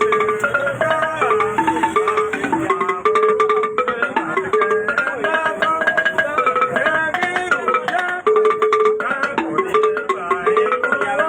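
Gbange music: quick, repeating pitched notes, with one low note returning again and again under a busier run of higher notes.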